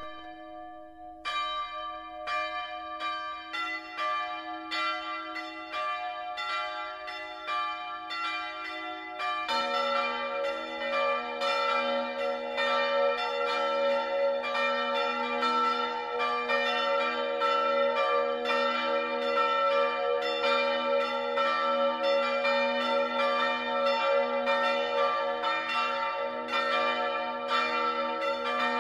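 Church bells pealing in a quick run of strikes, each tone ringing on under the next. One bell sounds first, more join about four seconds and ten seconds in, and the peal grows louder.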